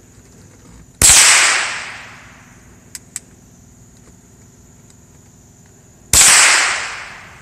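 Two .22 LR rifle shots about five seconds apart, each a sharp crack with a trailing echo that fades over about a second. Two faint clicks come between them.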